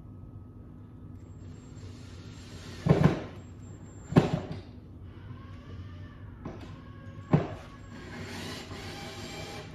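Three sharp knocks on wood, about a second apart and then one more a few seconds later, with rubbing and handling noise between them as the wooden screwdriver holder is fixed to the wall.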